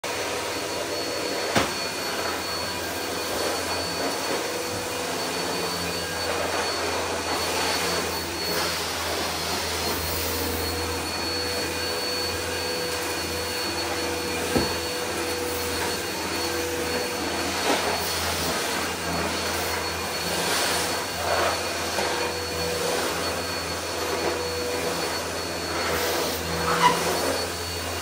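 Upright vacuum cleaner running steadily as it is pushed over a hard floor, its motor giving a steady whine over the rush of air. A sharp knock comes about a second and a half in and another about halfway through.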